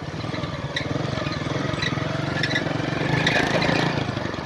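Motorcycle engine running steadily under way over a stony track, with a few scattered clicks and rattles.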